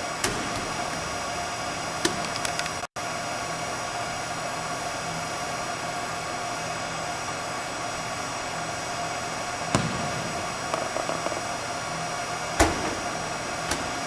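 Steady hiss and hum of air handling in a large, empty indoor arena, with a few short distant thumps, the loudest about twelve and a half seconds in. The sound cuts out for an instant a little before three seconds in.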